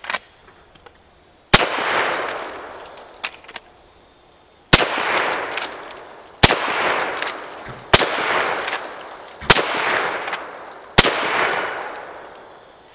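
Henry Lever Action X .410 lever-action shotgun fired six times in quick succession, the first shot about a second and a half in and the rest roughly a second and a half apart. Each shot is a sharp crack followed by a long fading echo.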